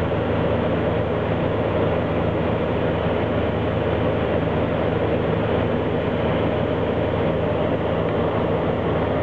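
Steady drone inside the cockpit of a Saab 340 on final approach: its twin turboprop engines and propellers running with several steady low tones over an even noise.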